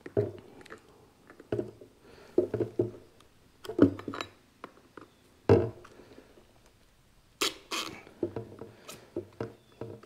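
Irregular knocks and thumps of things being handled, with a brief, brighter scraping rattle about seven and a half seconds in.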